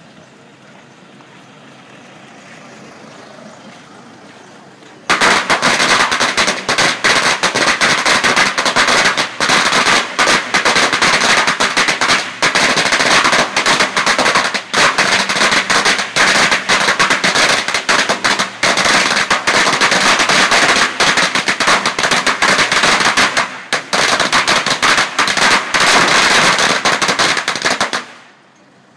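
A long string of firecrackers going off inside a conical brick firecracker-burning tower: a rapid, unbroken crackle of bangs that starts suddenly about five seconds in, runs for over twenty seconds, and stops abruptly near the end.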